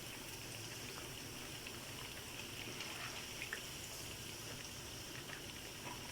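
Boneless chicken cubes deep-frying in hot oil: a steady sizzle with a few faint pops.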